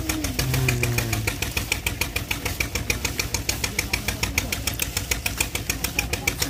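Engine running steadily with a regular knocking beat, about six a second, the kind of engine that drives a sugarcane crusher at a jaggery-making site.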